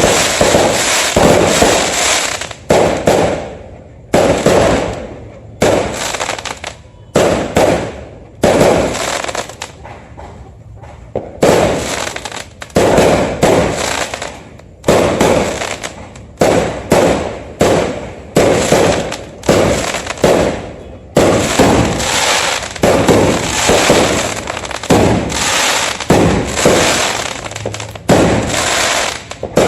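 Fireworks bursting in a rapid series of loud bangs, about one a second, each trailing off before the next. There is a short lull near the middle.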